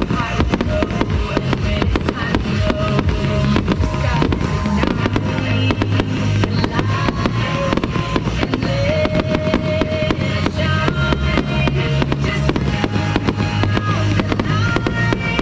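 Fireworks bursting and popping in rapid, dense succession, over music with sustained and gliding notes playing throughout.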